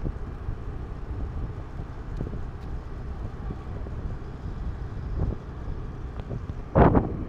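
Wind buffeting the microphone over the low rumble of a moving scooter, with one loud bump near the end.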